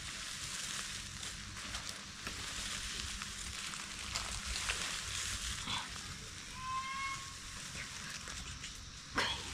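Dry rotted leaves and compost rustling and crackling as bare hands rake through and sort a heap of leaf mould.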